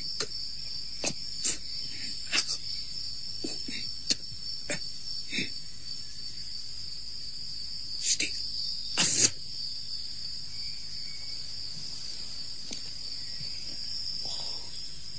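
Crickets chirring steadily in a high, even band, with scattered sharp clicks and pops; the loudest click comes about nine seconds in.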